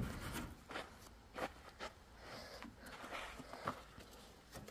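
Faint, scattered clicks and light knocks of someone handling parts on an old Opel truck, a few separate taps spread over several seconds.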